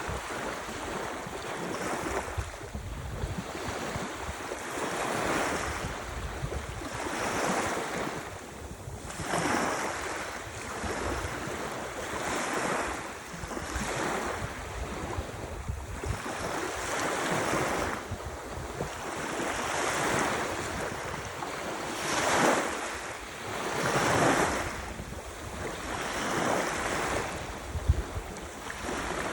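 Ocean surf: waves washing in and breaking over and over, swelling and fading every couple of seconds, with wind rumbling on the microphone. A brief bump near the end.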